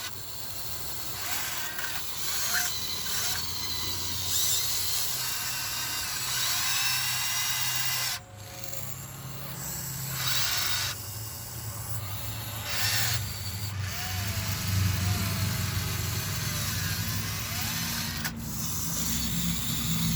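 Huina 1599 RC excavator's small electric motors and plastic gearboxes whirring at a high pitch, stopping and starting abruptly in short runs as its functions are worked. A low rumble builds near the end.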